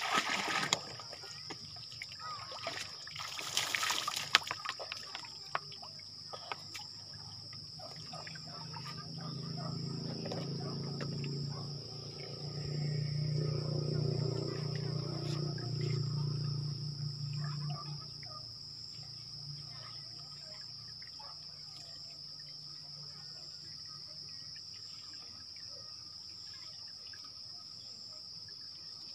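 Insects keep up a steady high drone throughout. Water splashes and pours just after the start and again around three to four seconds in. A low hum swells in the middle and fades out by about eighteen seconds.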